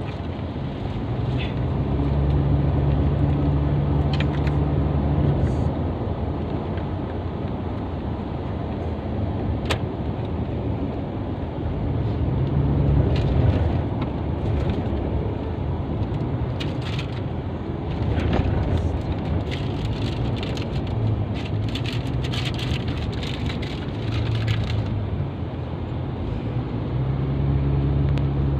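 Motor vehicle running along a road, its low engine hum rising and falling in pitch over road noise. Scattered rattles and clicks come through the middle stretch.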